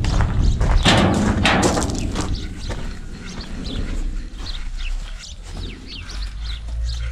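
Sheet-metal yard gate being swung open, rattling with a clatter and a thud about a second in. Then quieter, with birds chirping.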